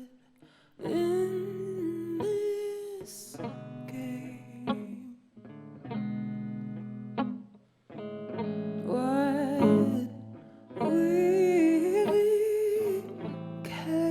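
Music: a woman's wordless sung melody, held and wavering, over plucked guitar chords, in phrases broken by short pauses.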